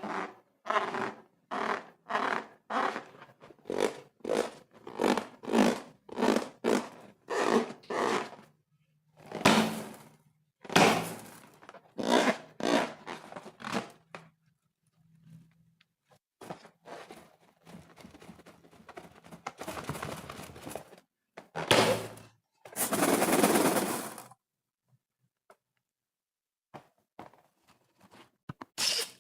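Slime being squeezed and kneaded by hand, squishing about one and a half times a second for the first eight seconds. Then come a few longer, louder squishes and scrapes, the longest about two-thirds of the way in.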